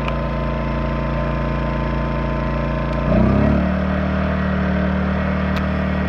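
Yamaha EF2000iS inverter generator running steadily in eco mode. About three seconds in, its engine speed ramps up abruptly with a brief surge in loudness, then holds at the higher, steady speed as it takes on load.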